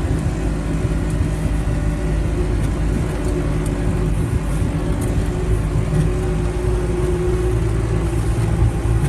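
Motor vehicle engine running steadily, a loud, even low hum that holds its pitch.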